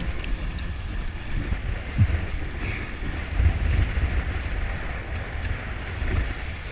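Wind rumbling and buffeting on the microphone, with gusts peaking about two and three and a half seconds in. Under it is a steady hiss of water rushing past the hull of a Weta trimaran under sail.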